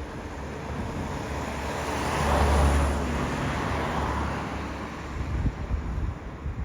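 A road vehicle passing by: its engine and tyre noise swells to a peak about two and a half seconds in, then fades. Wind buffets the microphone near the end.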